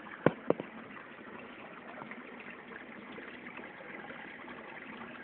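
Two sharp knocks close together about half a second in, then a steady hiss of running water.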